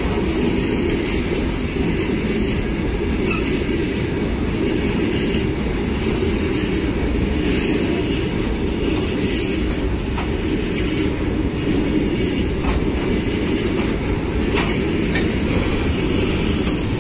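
Freight train's covered goods wagons rolling past close by: a steady heavy rumble of steel wheels on the rails, with irregular clicks as the wheels cross rail joints.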